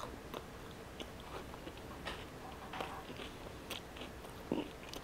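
A person chewing a mouthful of banh mi (crusty baguette with grilled pork and pickled vegetables), giving irregular small wet clicks and crunches.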